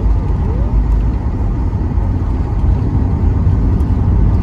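Steady low rumble inside the cabin of a Boeing 737 MAX 9, from its CFM LEAP-1B engines and airframe.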